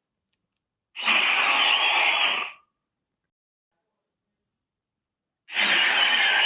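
Two breathy hissing calls of a fictional raptor-like dinosaur sound effect, each lasting about a second and a half, the second starting about four and a half seconds after the first.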